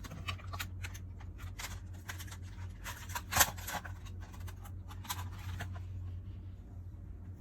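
Irregular rustling and light clicks, like things being handled, over a steady low hum. The loudest clicks come at the start and about three and a half seconds in.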